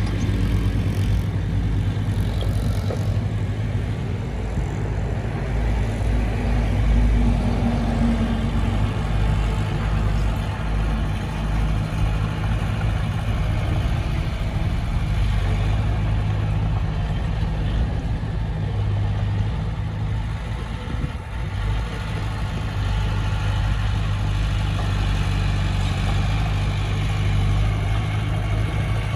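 Heavy diesel engine of earthmoving machinery running steadily, with a deep, even hum.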